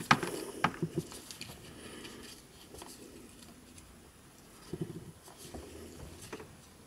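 Small plastic parts of a JBL Go 2 speaker clicking, tapping and scraping as they are handled and pried apart during disassembly, with a cluster of sharp clicks in the first second and a few more near the end.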